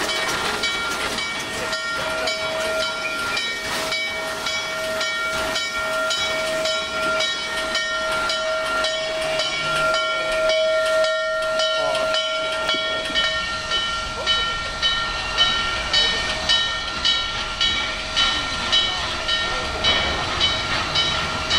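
Norfolk & Western No. 611, a Class J 4-8-4 steam locomotive, working past at low speed with steam hissing and a steady high ringing tone. About two-thirds of the way in the tone fades and the exhaust beats come through loud and even, about one and a half a second.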